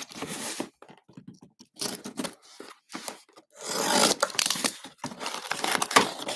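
Box cutter slicing through packing tape and cardboard on a shipping box, with tape tearing as the flaps are pulled open. It comes as several short scraping strokes, then a longer, busier stretch from about three and a half seconds on.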